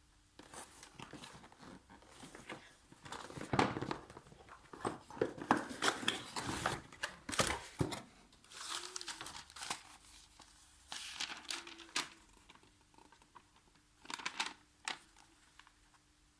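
Packaging being handled as a power tool is unpacked: irregular rustling with small clicks and knocks, busiest in the middle, a last short flurry, then stopping near the end.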